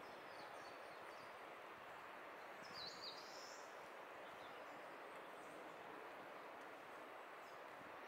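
Faint, steady rush of a distant mountain stream in the valley. A bird gives one short, high chirp about three seconds in.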